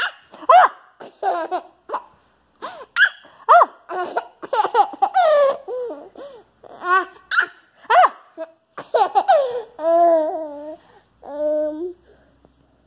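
A baby laughing hard in many short, high-pitched bursts of giggles and belly laughs, dying away near the end.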